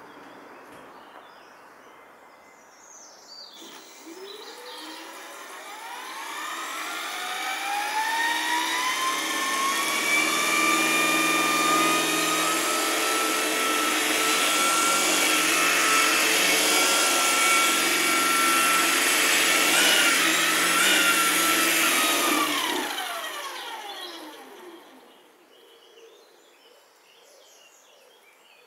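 Electric model helicopter's motor and rotor spooling up into a rising whine. The whine holds steady at about half throttle with a brief wobble in pitch near the end of the run, then winds down and stops. Birds chirp faintly before and after.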